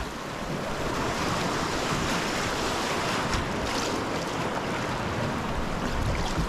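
Rushing whitewater of a class II river around a kayak, with the splash of kayak paddle strokes and wind noise on the action camera's microphone.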